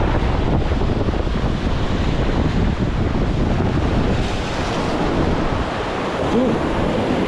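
Wind buffeting the microphone over the steady wash of sea waves at a harbour.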